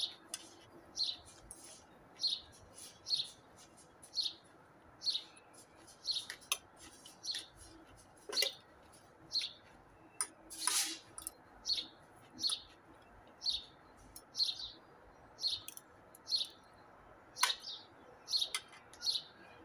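A small bird repeating a short, high chirp, about one to two a second, with a few sharp clinks of a metal fork and spoon on a ceramic plate.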